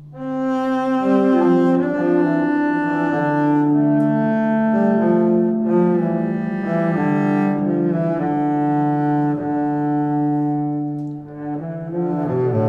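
Background music of slow, sustained, overlapping low instrumental notes that change every second or so.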